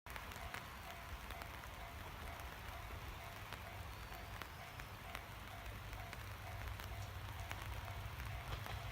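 Steady low rumble and hiss with scattered light ticks, slowly getting louder toward the end, and a faint, evenly pulsing tone underneath.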